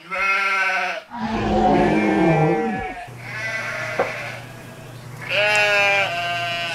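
A young woman's voice making wordless, goofy pitched calls, several held notes that waver and bend in pitch, with a sharp click about four seconds in.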